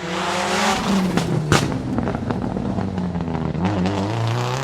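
Racing car engine running at high revs, with a sharp crack about a second and a half in and the pitch rising near the end.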